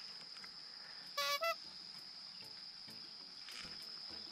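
Insects trilling steadily at a high pitch. A little over a second in, two short pitched calls, the second a little higher.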